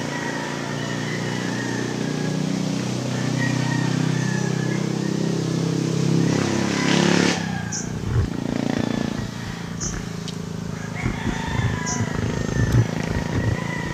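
Roosters crowing several times over a small motor engine that runs steadily, builds, and cuts out about halfway through. Scattered light rustles and knocks follow.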